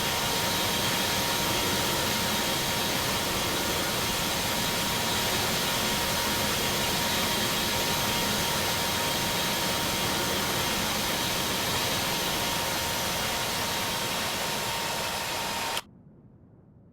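Airbus A320 jet engines running, a steady loud roar with a faint whine through it, that cuts off suddenly near the end.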